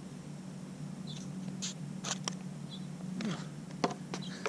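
Hard 97A skateboard wheels rolling on a concrete bowl, a steady low rumble broken by scattered sharp clicks and ticks that come more often near the end.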